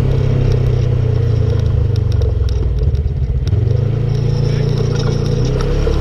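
Polaris RZR RS1 side-by-side's twin-cylinder engine running under way, easing off briefly about three seconds in and then picking back up, with scattered ticks and clatter over it.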